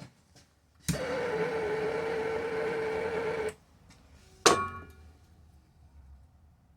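A small gas torch lights with a click and burns with a steady hissing jet for about two and a half seconds, then shuts off suddenly. It is being used to melt the end of a chainsaw's nylon starter cord. About a second later comes a single sharp metallic clack that rings briefly.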